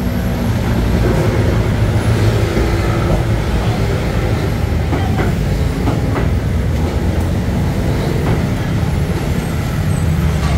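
Steady low rumble of street traffic, with a heavy vehicle running close by.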